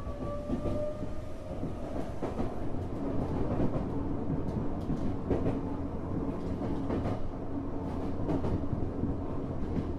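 Tokyo Metro 05 series commuter train running, heard from inside at a car end: a steady rumble with repeated clacks over rail joints. A whine from the traction drive rises slowly in pitch and fades out in the first couple of seconds, and a steady low hum comes in about three seconds in.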